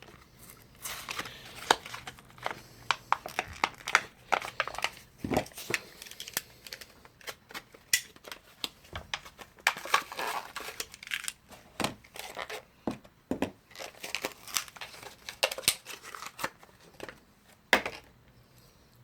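Packaging of Eveready C-size alkaline batteries being torn open and crinkled by hand: irregular crackles, rips and clicks that die away shortly before the end.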